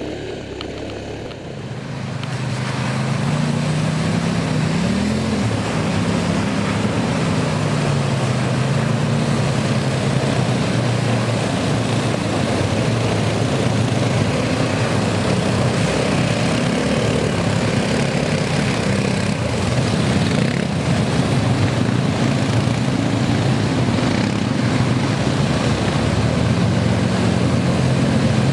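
4x4 ATV engines droning and revving as they ford a shallow river, with water rushing and spraying around the wheels. The engine noise grows louder over the first few seconds, then holds steady with the pitch rising and falling.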